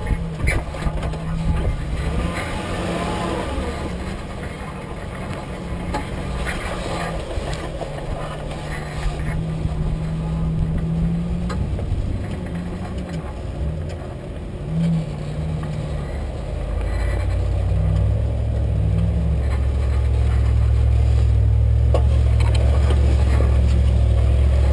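2008 Jeep Wrangler Unlimited's 3.8-litre V6 and drivetrain running at low speed over a rough dirt trail, heard close up from underneath the body, with knocks and rattles early on. About two-thirds of the way through, the low drone grows louder and stays loud.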